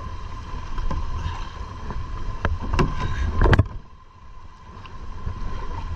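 Wind rumbling on the microphone with water noise from paddling a kayak, and a few sharp knocks about halfway through. It turns quieter about three and a half seconds in.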